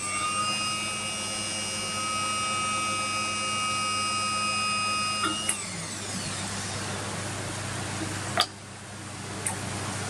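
FINN-Power P20 hose crimper running with a steady whine, which cuts off about five and a half seconds in and winds down in pitch while a low hum carries on. A couple of sharp clicks come near the end.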